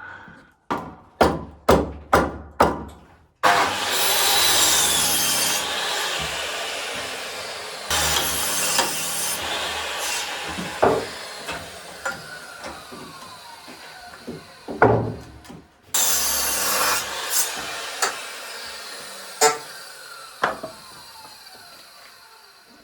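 A few sharp hammer knocks on timber as nails are knocked out of old studs. Then a power saw makes three cuts through the wood, each loud at the start and dying away slowly as the blade winds down, with a few more knocks between the cuts.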